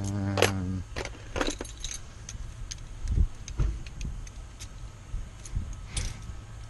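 Keys jingling and small metal lock parts clicking and tapping while a Kwikset knob lock is rekeyed, with a few duller knocks. A low steady hum runs underneath.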